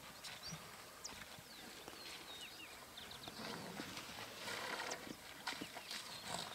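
Waterhole ambience: birds chirping with many short high whistled notes, over soft knocks and rustling from elephants moving and drinking at the water's edge, the rustling growing louder in the second half.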